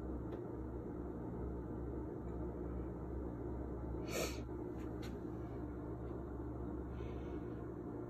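A steady low mechanical hum, with a short sharp noise about four seconds in followed by two faint clicks.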